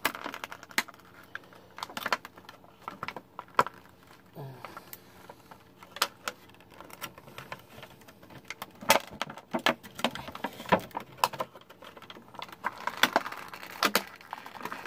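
Irregular clicks, taps and rattles of hard plastic as a Bakugan toy ball is twisted and pried at inside its plastic blister packaging, stuck because the hole is too small for it to come out.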